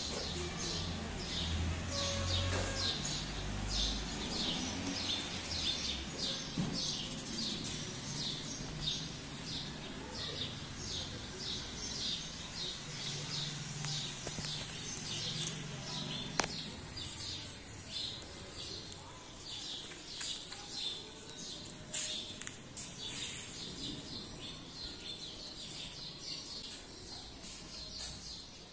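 A bird chirping over and over, short high chirps about twice a second, growing more irregular in the second half.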